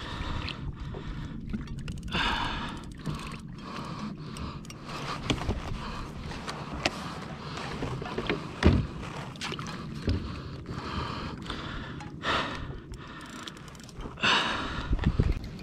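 Water sloshing around a kayak and wind on the microphone, with a few short breathy rushes and scattered handling knocks, the sharpest knock a little before the middle.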